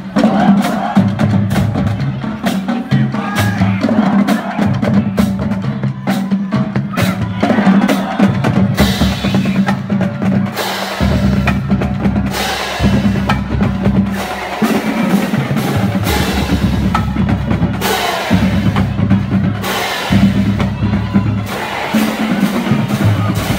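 High school marching band playing as it marches past: a drumline of snare and bass drums hitting rapid, steady strokes over low brass notes.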